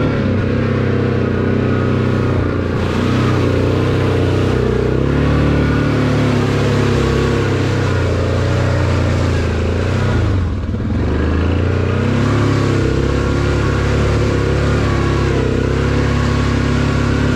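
ATV engine running under throttle on a muddy track, its revs rising and falling with the terrain. About ten seconds in the throttle eases off briefly, the engine note drops, then it picks up again.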